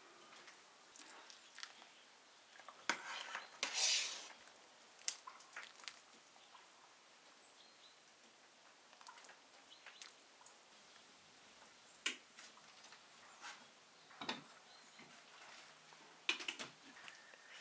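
Metal ladle clinking and scraping against a stainless steel soup pot and a porcelain bowl as soup is served, in scattered sharp clinks, the loudest cluster about three to four seconds in. Near the end a glass lid is set down on the pot with a couple of clinks.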